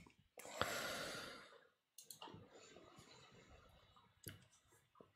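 A breath out into a close microphone, about a second long near the start, followed by a few faint mouse clicks.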